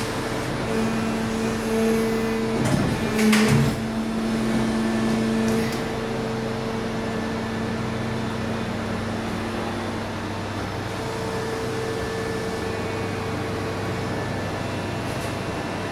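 KraussMaffei CX injection moulding machine running: a steady machine hum with a few steady tones that swell and fade, and a brief louder rushing, clattering noise about three seconds in.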